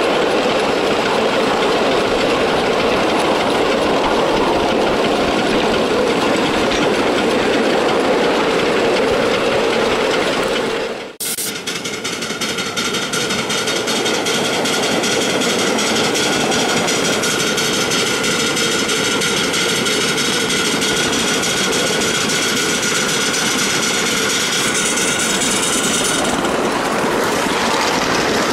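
Ride-on miniature live steam locomotive running along its track, heard from on board: a steady rumble and clatter of the wheels on the rails. The sound breaks off briefly about eleven seconds in.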